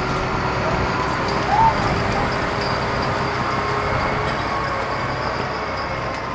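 Steady vehicle and traffic noise picked up by a dashcam microphone inside a stopped car, with a brief rising-then-falling tone about a second and a half in.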